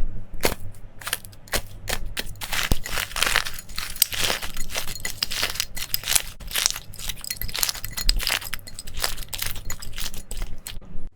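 Slime being squeezed and pressed by hand, giving a dense run of crackles and pops.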